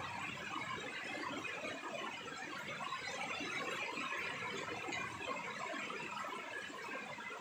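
Rain falling steadily on a wet concrete rooftop, an even, unbroken patter.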